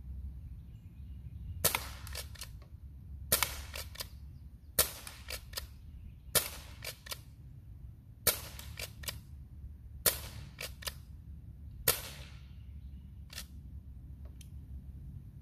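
Crosman 622 CO2-powered .22 pump-action pellet rifle firing a string of about seven shots, roughly one every one and a half to two seconds, each followed by a few quick clicks. Two fainter clicks come near the end.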